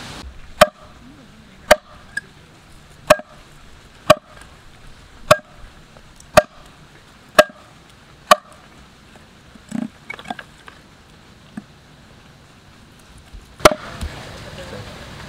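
Heavy cleaver chopping stingray flesh on a wooden chopping block: sharp knocks about once a second, eight in a row, then a pause of several seconds and one more knock near the end.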